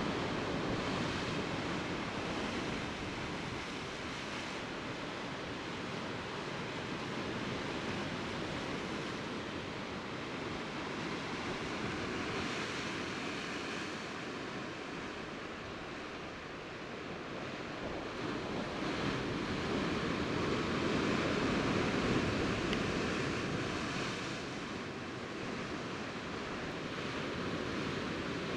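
Sea surf washing against a rocky shore: a steady rush of waves that swells louder for several seconds past the middle.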